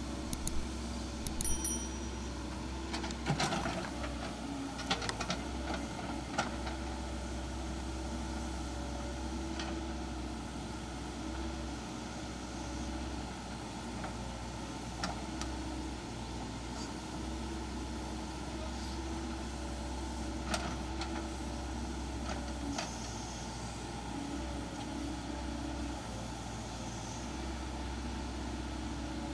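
Hydraulic excavator's diesel engine running steadily while it digs foundation trenches, with a cluster of sharp clanks and knocks in the first few seconds and a few more about twenty seconds in.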